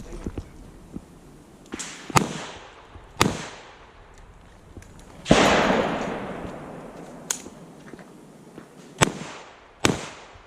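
Handgun shots fired at irregular intervals, about six reports in all. The loudest, about five seconds in, has a long echoing tail.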